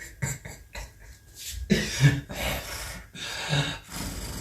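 A person's breaths and short snorts in a string of separate sounds, a few of them with a low voice in them.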